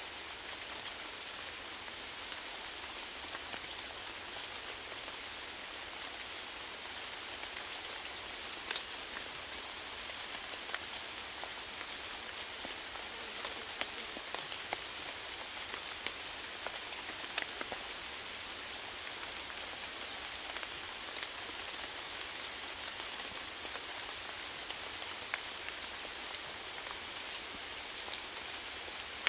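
Steady rain falling on a surface, an even hiss with scattered louder individual drops hitting close by.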